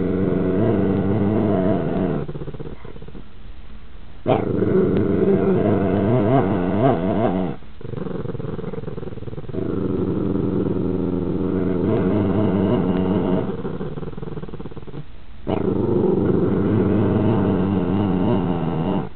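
A puppy growling over food in four long, drawn-out grumbles, each a few seconds long, with short pauses between them.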